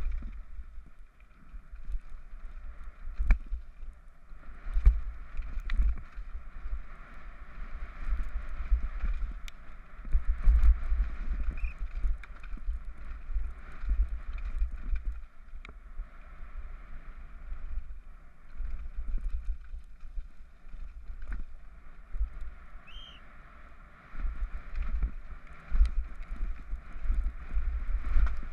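Scott Gambler downhill mountain bike ridden fast over rocky gravel trail, heard from a helmet-mounted GoPro: wind buffeting the microphone with a deep rumble, tyres hissing on gravel, and frequent sharp clicks and knocks as the bike rattles over rocks, the loudness surging and dropping with the terrain.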